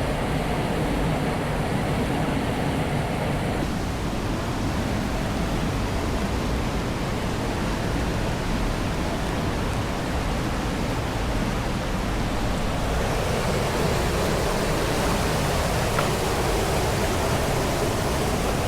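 Steady rush of flowing stream water, an even hiss that gets a little brighter about two-thirds of the way through.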